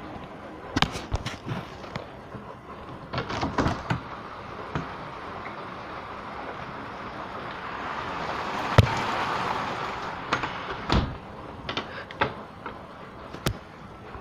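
Rain falling steadily, with scattered sharp knocks and a louder rush of noise that swells and fades over a few seconds in the middle.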